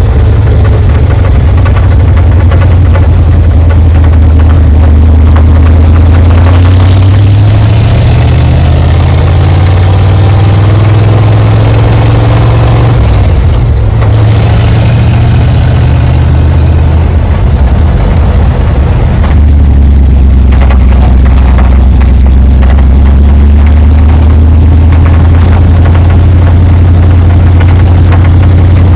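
Rat-rod pickup truck's engine pulling the truck along, heard from inside the cab. The engine note climbs, dips briefly at a gear change about halfway through, climbs again, then eases off and runs steadily. Wind and road noise rise over the middle stretch.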